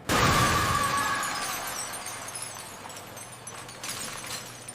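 Cartoon sound effect of glass shattering: a sudden crash at the start, then ringing shards and debris that fade away over the next few seconds.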